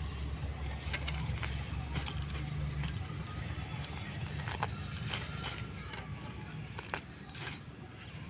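Leafy amaranth plants rustling and their stems and roots tearing as they are pulled by hand from the soil of a clay pot, with scattered sharp clicks and the clink of bangles on the wrist. A low rumble sits under the first three seconds and then fades.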